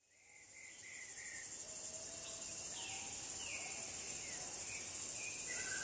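Insect chorus: a steady high-pitched shrilling that fades in over the first second. A few short chirps and brief falling whistles sound over it.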